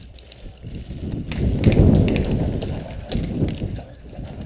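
A player running in airsoft gear: quick footsteps with rattling equipment and rubbing on the camera, building up to be loudest about two seconds in, then easing off.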